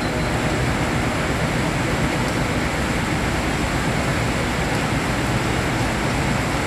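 Steady rain hiss mixed with the low sound of idling diesel bus engines, an even wash of noise with no breaks.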